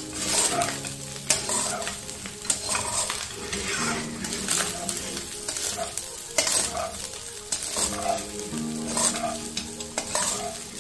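Rice with carrots, peas and green beans sizzling in a hot oiled wok while a metal slotted spatula scrapes and tosses it, with a stroke about every second. The rice is being stir-fried on high heat.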